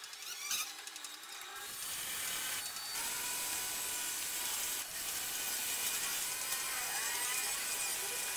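A hand wrench ratcheting on a bolt in a quick run of clicks, then a steady hiss with faint tones from about two seconds in.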